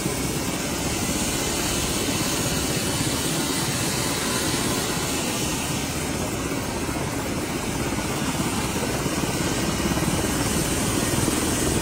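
Steady noise of aircraft engines running on an airport apron, a continuous low rumble with a hiss above it.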